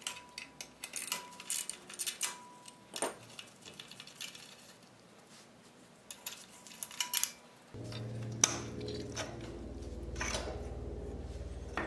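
Metal hand tools clicking and clinking on the exhaust head pipe nuts at the front cylinder of a Yamaha XV1100 Virago, in irregular sharp taps with a little ringing. About eight seconds in, a steady low hum starts.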